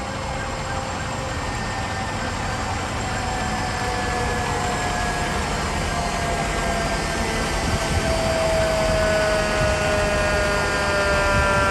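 Heavy vehicle engine running with a steady rumble under a long, slowly falling whine, growing gradually louder.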